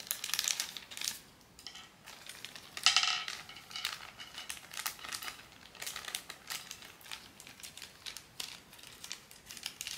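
Plastic blind-box packaging crinkling and crackling as it is handled and unwrapped, with scattered small clicks. A louder plastic clack with a brief ring comes about three seconds in.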